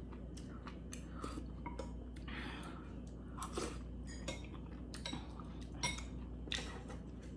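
Chopsticks clinking and scraping against a stainless steel soup pot while stirring, with some chewing between the irregular clicks.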